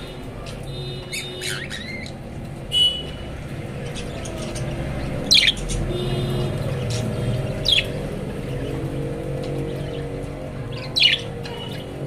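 Budgerigars giving short, sharp squawking calls, about five in all, spaced every couple of seconds, over a steady low hum.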